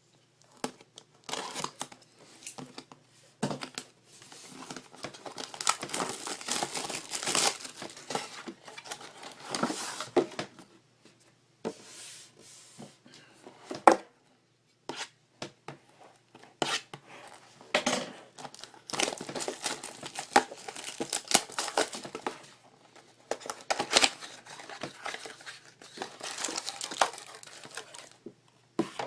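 Packaging of a sealed box of trading cards being opened by hand: plastic wrap crinkling and tearing and cardboard handled in irregular bursts, with one sharp click about halfway through.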